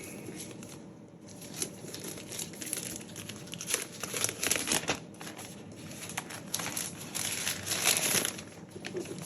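Packaging wrap crinkling and rustling as it is handled and pulled off a new computer, in irregular scratchy bursts that are loudest about four seconds in and again near the end.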